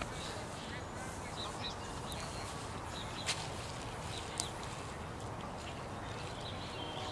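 Backyard ambience with faint, short, high animal calls scattered throughout, and two sharp clicks, one a little past three seconds in and one about a second later.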